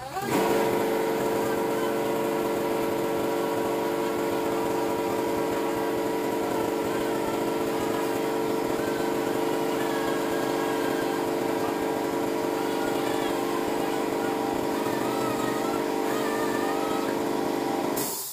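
Dual-action (DA) sander running at a steady whine while lightly sanding the frame; it starts suddenly at the beginning and cuts off near the end.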